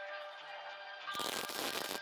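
Background music with steady tones; about a second in, a short burst of MIG welding arc crackle (a Viper MIG 185 tacking an exhaust pipe joint) comes in loud for most of a second and cuts off.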